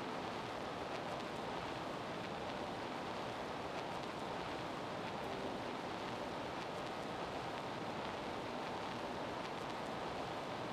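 Steady, even hiss of a gymnasium's background ambience, with no distinct voices, whistles or ball bounces standing out.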